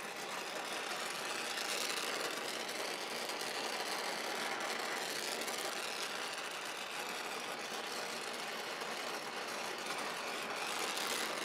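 Steady hiss of a gas torch's feathery flame played over steel knife tangs, swelling gently now and then as the flame is moved. The tangs are being heated to soften them.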